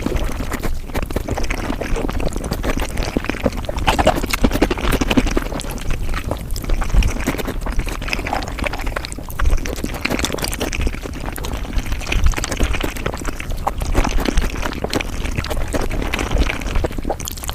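Mukbang eating sounds played at five times speed: a dense, unbroken run of chewing and smacking clicks.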